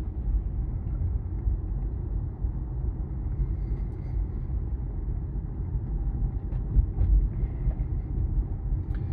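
Steady low road and tyre rumble inside the cabin of a 2023 Tesla Model Y electric car on the move, picked up by a phone microphone.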